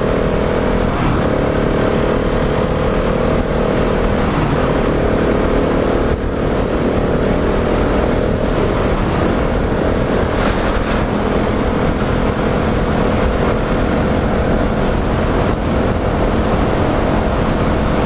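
2017 Husqvarna 701 Supermoto's single-cylinder engine pulling up through the gears. Its pitch climbs a little between short breaks about one, four and a half and nine seconds in, then it holds a steady highway cruise. A loud rush of wind on the helmet camera runs under it.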